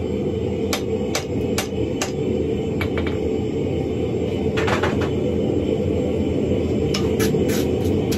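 Hand hammer striking a glowing wrought iron hammer head on a steel anvil, in bursts of blows about two or three a second with short pauses between. The blows sound over a loud, steady, low rushing noise.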